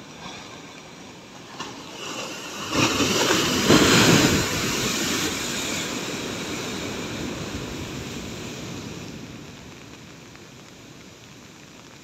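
A large ocean wave breaks and crashes against concrete tetrapods in a loud rush of surf. The crash swells about three seconds in, then the foaming water slowly fades away over several seconds.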